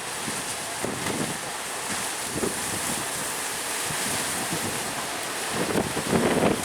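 Sea surf breaking under a strong wind, with wind buffeting the microphone; the buffeting grows heavier near the end.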